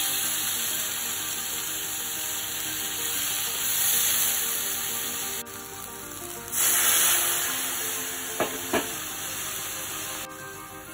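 Water poured into a hot stainless steel pan, hissing and sizzling on the browned sauce as it deglazes the pan, with a louder burst of sizzling about two-thirds of the way in and two short knocks soon after. Background music with held notes plays under it.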